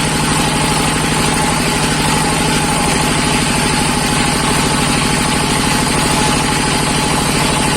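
Diesel engine of a wood-to-sawdust shredder machine running steadily, with a fast, even knocking pulse.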